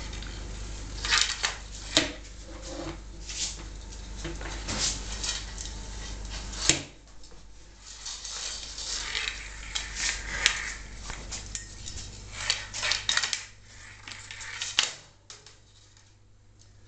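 Long-handled plastic brush clattering and scraping on a tiled floor as German shorthaired pointer puppies tug and chew at it, with irregular sharp knocks. It quiets down near the end.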